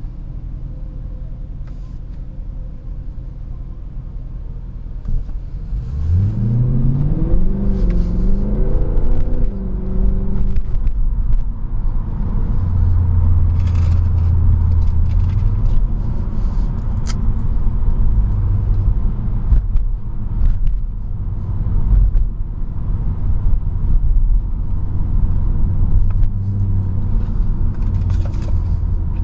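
Mercedes-Benz C63 AMG (W204) 6.2-litre V8 heard from inside the cabin. It idles steadily, then about six seconds in the revs climb as the car pulls away, the pitch rising in a few steps through the gears. It then settles into a low steady drone while cruising.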